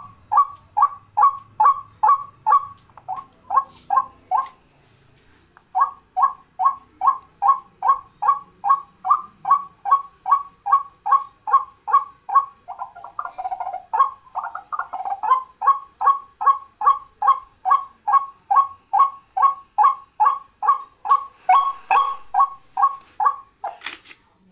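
Recorded bird call played back from a lure cassette through a car cassette head unit: short, pitched call notes repeated evenly about three a second, breaking off for about a second and a half near the 5-second mark, then resuming.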